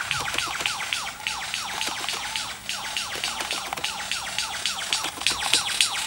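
Superb lyrebird singing its display song: a fast run of short repeated falling notes, several a second, mixed with sharp clicks.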